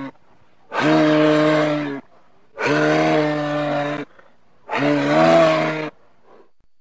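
Moose calling: three drawn-out calls of steady pitch, each about a second and a quarter long and about a second apart, after the tail end of an earlier call at the very start.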